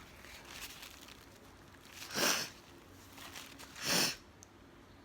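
A woman sniffing twice, two short breathy intakes through the nose about two seconds apart, as a sneeze builds up.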